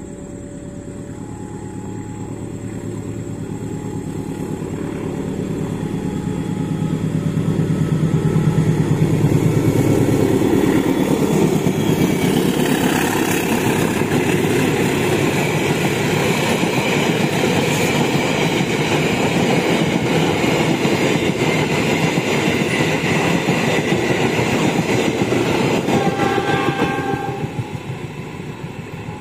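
Diesel-electric locomotive hauling a passenger train, accelerating: its engine rumble grows as it approaches, then the locomotive and coaches pass close by with wheels clattering on the rails before fading near the end. A warning chime alternating between two notes sounds through the first several seconds, and a short horn blast comes near the end.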